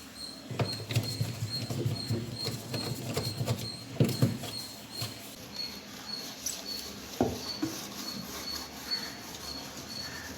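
Scrubbing inside a refrigerator with a cut lemon and rock salt: quick, irregular rubbing strokes for the first five seconds or so, then a single knock about seven seconds in.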